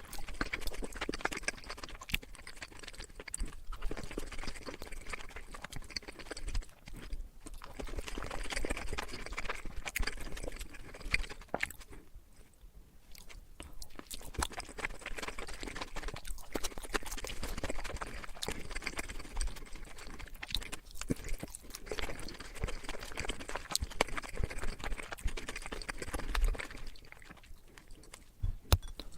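Close-miked eating: chewing and biting food, with many sharp crisp clicks and crunches, pausing briefly a few times.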